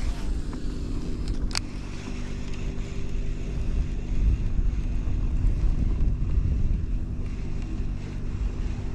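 Wind buffeting the microphone, with the steady whir of a baitcasting reel being cranked to retrieve a lure, and a single click about one and a half seconds in.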